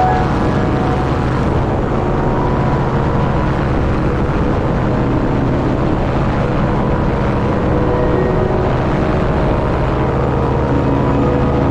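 Tandem paramotor trike's propeller engine running steadily in flight, with an even, unchanging drone.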